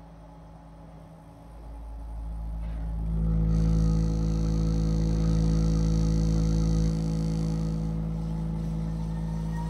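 Steady low test tone from a 6-inch subwoofer driven by a TPA3116D2 class-D amplifier board, swelling louder about two seconds in. While it is loudest, a higher buzzing rides on top of it for a few seconds.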